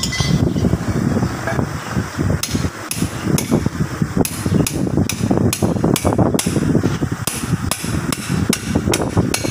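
Sharp metal-on-metal strikes, about two a second, starting about two seconds in, from work on a Case 580M backhoe's front tie rod end and steering knuckle, over a steady low rumble.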